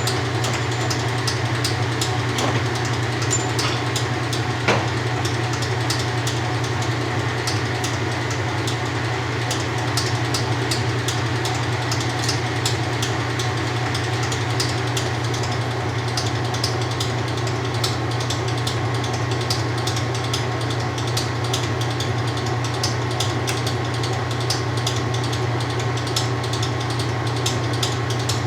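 1993 Kenmore 80 Series top-load washer spinning with a light load: a steady motor hum with a light, rapid ticking running through it, and one sharper knock about five seconds in.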